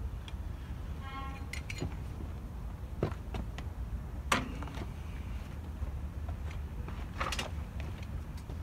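Salyut-S folding bicycle being lifted and moved about: a handful of clicks and knocks of metal parts, the loudest about four seconds in, over a steady low rumble. A brief pitched squeak comes about a second in.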